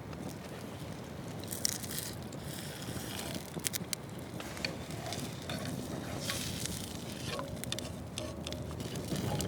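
Small wood fire crackling, with irregular sharp pops and crackles over a steady low rumble.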